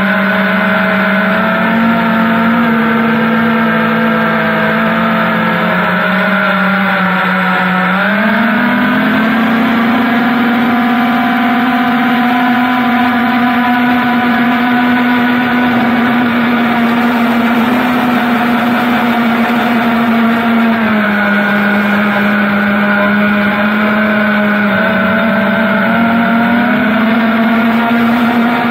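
FPV quadcopter's electric motors and propellers whining steadily in flight, a cluster of close tones that rise together about eight seconds in, drop back about twenty-one seconds in, then climb again near the end as the throttle changes.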